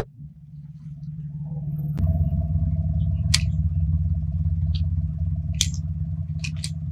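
A sharp crack at the very start, then a car engine idling with a steady low hum that grows louder about two seconds in. Scattered light plastic clicks come from a jointed plastic crocodile toy as it is handled and set down in front of the tyre.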